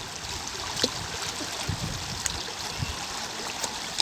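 Water running and trickling steadily, with scattered drips and small splashes.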